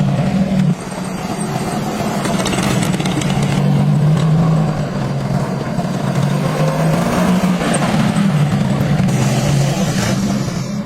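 The restored Jeep's engine running, its pitch wavering up and down a little.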